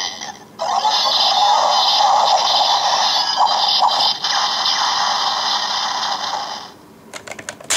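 DX Sengoku Driver toy belt playing an electronic sound effect through its small speaker: a steady rushing noise for about six seconds that then stops, followed by a few sharp plastic clicks near the end.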